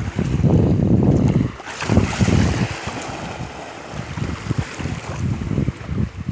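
Wind buffeting the microphone, then a dog splashing into the river about two seconds in and paddling off through the water.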